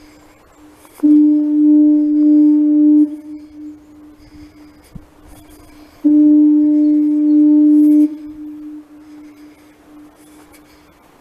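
Seal Island foghorn sounding two steady, low blasts of about two seconds each, about five seconds apart, each starting and stopping abruptly; the same low tone lingers faintly between the blasts.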